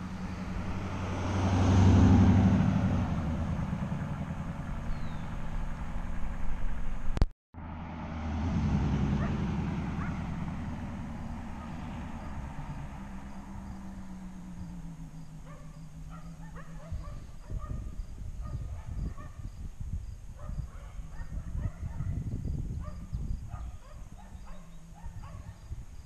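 2015 Chevrolet Camaro RS driving past, its engine and exhaust swelling to a loud peak about two seconds in and then fading as it pulls away. After a brief cut the car is heard again, swelling and then receding into the distance. In the second half, short repeated animal calls sound in the distance.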